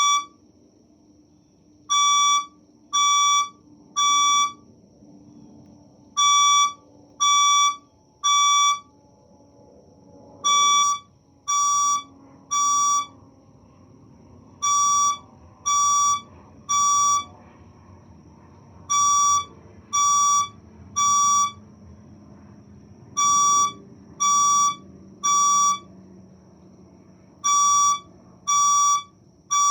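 Fire alarm speaker sounding the temporal-three evacuation tone: loud beeps in groups of three, about a second apart, each group repeating roughly every four seconds. A faint steady high whine runs underneath.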